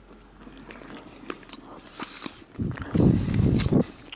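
Biting into a slice of bread thickly spread with tahini and chewing it: soft faint clicks at first, then about two and a half seconds in a louder, low, muffled stretch of chewing lasting about a second.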